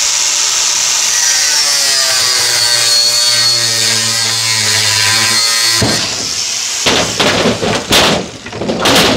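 Angle grinder cutting through a whiskey barrel's metal hoop, a steady high whine that stops about six seconds in. The freed wooden staves then clatter and bang down onto the trailer's metal deck.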